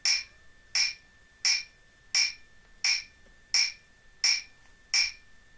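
Metronome click track ticking a steady beat, eight even clicks about 0.7 s apart, with a faint steady high tone underneath.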